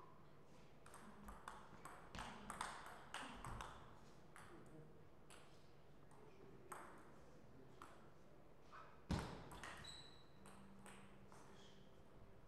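Table tennis ball clicking in a quick rally, bouncing on the table and struck by the bats, for a few seconds. Then come a few scattered single bounces and one louder thump about nine seconds in.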